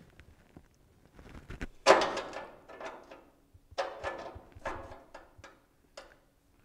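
Scraping and knocking in several short bursts, the loudest about two seconds in, as a fitted piece is pushed and worked by hand into the gap between the end of a 1960 Chrysler chrome bumper and the car body.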